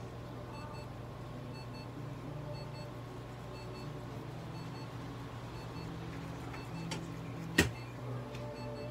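Steady low electrical hum of clinic equipment, with faint short beeps repeating about once a second like a medical monitor. A sharp click stands out about three-quarters of the way through.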